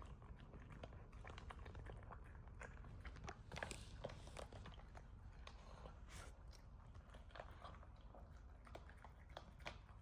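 A puppy eating: quiet, quick chewing and biting, a steady run of small clicks that grows busier about three and a half seconds in.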